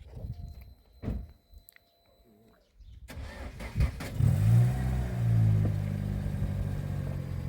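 A few light knocks, then an engine is cranked and catches about four seconds in. It briefly picks up speed, then settles into a steady idle.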